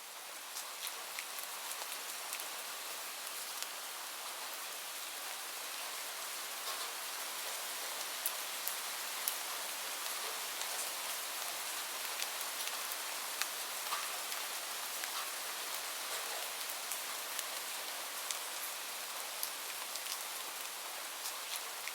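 Steady rain falling, an even hiss with scattered individual drops ticking sharply; it swells a little over the first few seconds, then holds steady.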